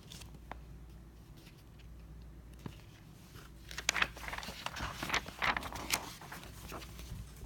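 Soft rustling and light taps of handling close to the microphone, busiest in the second half, over a low steady hum.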